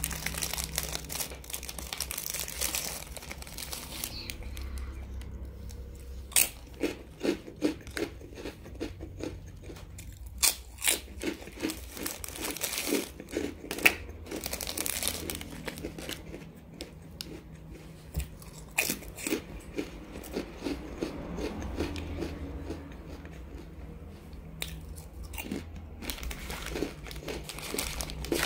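Plastic snack wrappers crinkling and tearing open, then crisp rice crackers crunching in sharp, loud bites and being chewed, in bursts through the rest of the stretch.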